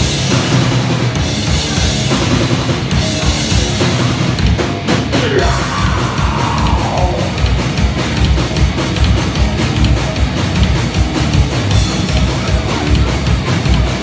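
Live heavy metal band playing loud: drum kit with bass drum driving a dense wall of amplified instruments, with a falling pitched sweep about six seconds in.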